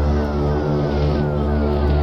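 Background music: sustained low chords under a short falling figure that repeats about three times a second.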